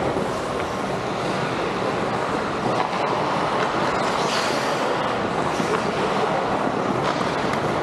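Ice hockey game noise in an arena: a steady rumbling wash of skates on ice and rink noise, with a few sharp clicks of sticks or puck.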